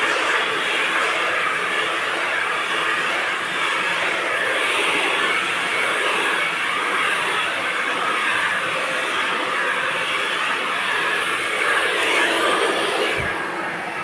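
Handheld hair dryer running steadily, blowing air through thick hair as it is dried and stretched.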